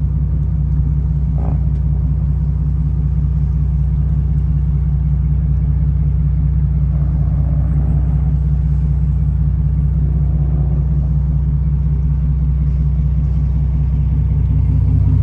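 A motorboat's engine running steadily, a low, even drone.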